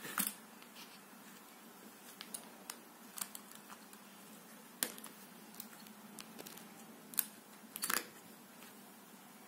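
Small steel screwdriver bits clicking against the metal clip holders of a precision screwdriver wallet as they are handled and pulled out. The clicks are short and sharp and come at irregular gaps, a couple of them close together about two seconds from the end.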